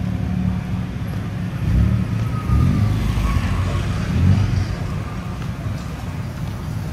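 Road traffic: motor vehicle engines running close by, a low rumble that swells a few times as vehicles pass.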